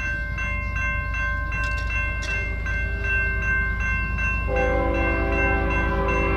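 Level-crossing warning bells ringing in a rapid, regular ding about three times a second as the boom gates lower, over a steady low rumble. About four and a half seconds in, an approaching train's horn joins with a steady multi-note chord.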